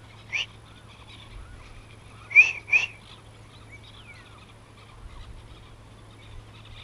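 A bird giving loud, short, harsh calls: one right at the start, then a quick pair about two and a half seconds in.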